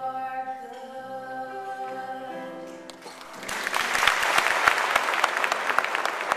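The song's accompaniment holds a final sustained chord, and about three seconds in an audience breaks into applause and claps steadily.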